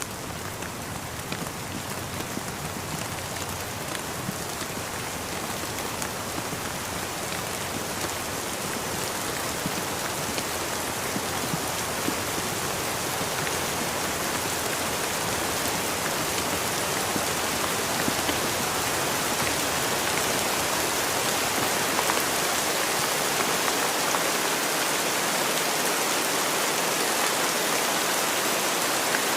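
Steady rain falling, a dense hiss with scattered individual drops tapping, slowly growing louder.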